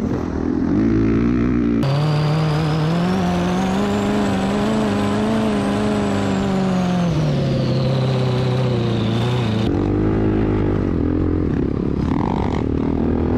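Off-road engine noise. Near the start and again near the end, a four-stroke dirt bike (Honda CRF450R) runs with wind noise on the rider's helmet camera. Through most of the middle a different machine buzzes steadily, with a high whine above it; both rise in pitch and then fall back.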